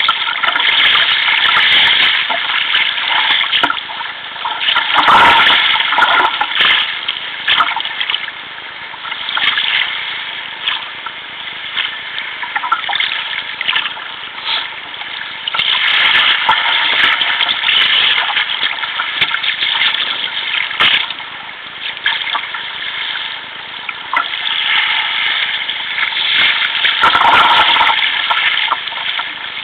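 Choppy sea water splashing and rushing along a sea kayak's hull as it is paddled, rising and falling with the waves, with louder splashes about five seconds in and near the end.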